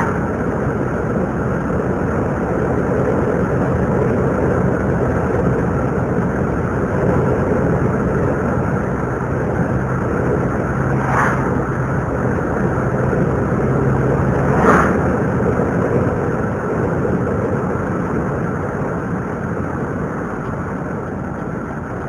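Steady road and engine noise heard from inside a moving car, with two brief knocks about 11 and 15 seconds in.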